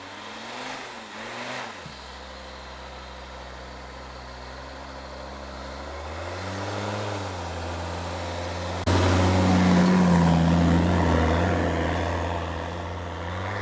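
Off-road 4x4 engine revving up and down as the vehicle climbs through snow, pitch rising and falling twice. About nine seconds in it gets suddenly louder, up close, then eases off.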